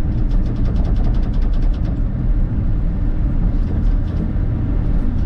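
Bobcat E42 R2 mini excavator's diesel engine running steadily, with a quick run of light ticks, about ten a second, through the first couple of seconds.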